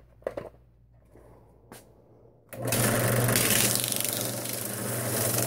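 A few light knocks, then a little under halfway in a drill press switches on and runs with a steady hum, a sanding drum in its chuck rasping against a wooden slingshot fork held to it.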